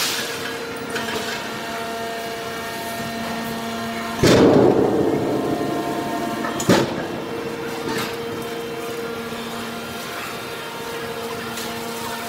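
Horizontal hydraulic metal baler running: a steady hum with a few held tones from its electric hydraulic pump. About four seconds in a sudden loud rush of noise breaks in and fades over two seconds, then a sharp metallic bang and, about a second later, a lighter knock.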